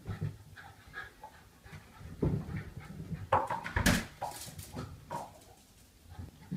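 Jack Russell terrier running down carpeted stairs with a toy in its mouth, its paws thumping irregularly on the steps, with panting. A sharper, louder knock comes about four seconds in.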